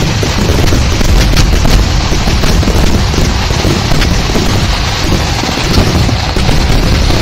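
Kerala temple fireworks (vedikkettu) going off in a dense, continuous barrage: overlapping blasts and crackling merge into one heavy rumble with no pause.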